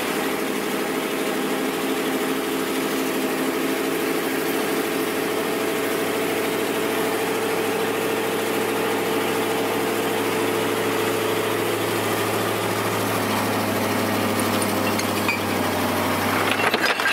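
Dump truck engine running steadily, driving the hydraulic hoist that raises the tipper body loaded with stone blocks. Near the end the stones begin to shift and clatter as the load starts to slide out.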